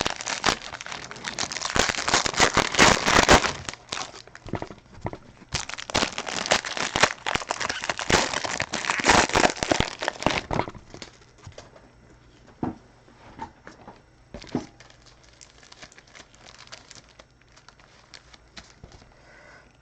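Plastic wrapping crinkling and tearing as a sealed trading-card box and pack are opened. About halfway through this gives way to quieter, scattered clicks and taps of cards being handled.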